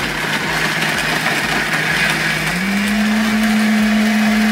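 Countertop blender running, blending a blue frozen margarita; its motor pitch steps up about two and a half seconds in and then holds steady.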